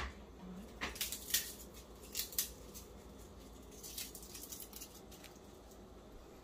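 Light kitchen prep handling: a scattering of short clicks and taps in small clusters, as food and utensils are handled.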